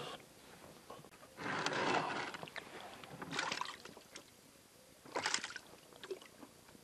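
Water splashing around an inflatable rubber boat in three short bursts, the first the longest and loudest.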